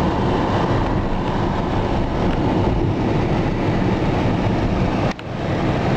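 Steady road and running noise of a car driving at speed, heard from inside the cabin. It briefly drops out about five seconds in.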